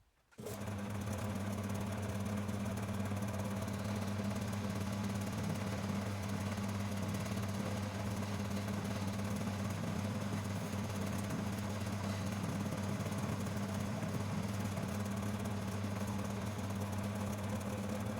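Homemade metal lathe running under its electric motor, with the belt and spindle pulleys turning: a steady low hum with a fainter whirr above. It starts abruptly about half a second in and holds steady.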